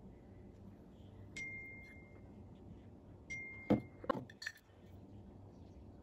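A metal spoon clinks twice against a dish, each clink ringing on briefly as a clear tone, followed by a few soft knocks and scrapes of the spoon.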